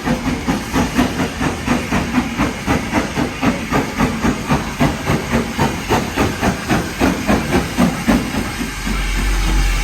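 Standard-gauge steam locomotive's exhaust beating steadily at about four beats a second as it comes in, with hissing steam. Near the end the beats stop and a steady low rumble is left.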